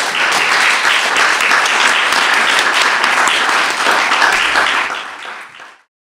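An audience applauding steadily, easing off slightly before it cuts off suddenly near the end.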